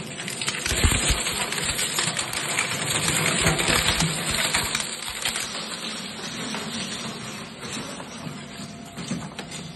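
15 horsepower Zuick Z2S-400 shredder chewing plastic automotive bumper parts: a dense, rapid crackling and snapping of plastic breaking in the cutters. The crackle is loudest for the first four or five seconds and thins out as the pieces are consumed.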